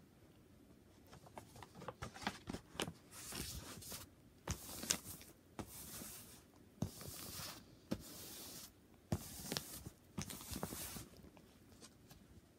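A diamond painting canvas with its plastic film being handled, making a string of short crinkling, scraping swishes with light taps in between, most of them from a few seconds in until near the end.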